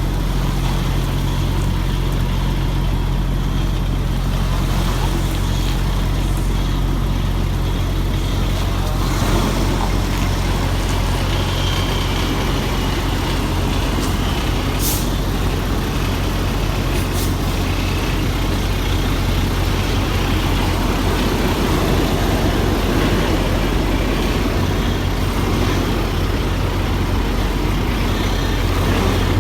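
Semi-truck's diesel engine running steadily at low speed during a trailer-backing maneuver.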